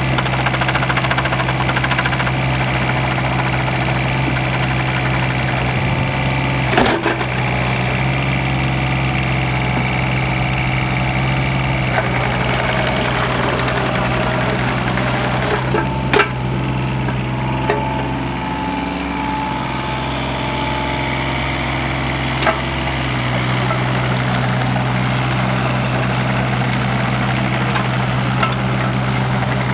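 Yanmar VIO 25 mini excavator's 3TNV76 three-cylinder diesel running steadily, its note shifting a few times as the boom and tracks are worked. Two sharp metal clanks, about 7 and 16 seconds in, and a lighter one later.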